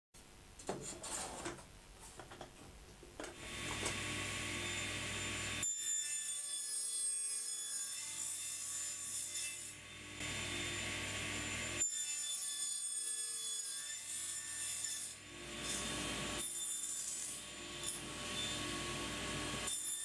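A few light knocks of handling, then from about three seconds in a table saw runs while the crosscut sled carries a pine strip through the blade to cut half-lap joints. The cutting noise changes several times as the sled moves through.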